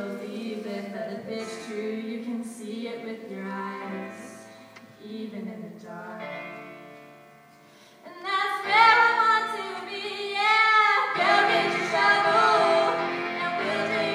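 Female voices singing a pop song, softer at first and then swelling louder about eight seconds in, with wavering held notes.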